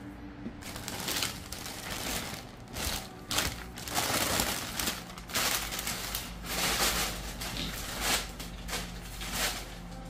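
Black plastic bag lining a shipping box, crinkling and rustling in uneven bursts as it is pulled open and handled.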